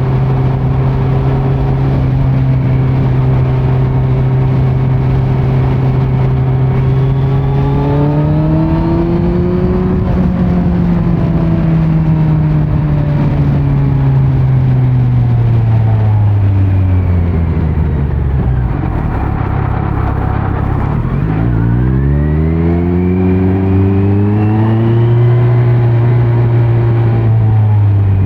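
2018 Kawasaki Z900 inline-four running through a Leo Vince muffler on stock headers with no dB killer. The bike cruises at steady revs, picks up briefly, then the revs fall slowly for several seconds as it slows. About three quarters of the way in it accelerates hard, with a sharp rising pitch, and settles to steady revs again.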